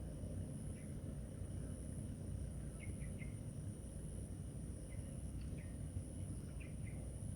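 Insects keep up a steady, high-pitched trill while a bird gives a few short, faint chirps, all over a steady low rumble of background noise.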